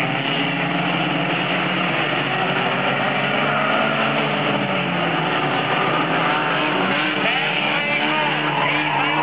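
Several pony stock race cars' engines running at once, their pitches rising and falling as the cars race around the figure-eight track.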